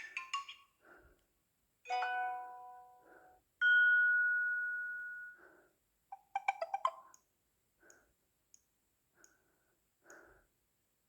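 Samsung Galaxy A3 (2016) phone playing a run of short preset tones through its speaker, one after another: a quick run of chime notes, a fading chord, a single held tone that slowly fades, and another quick run of notes. A few faint short blips follow in the second half.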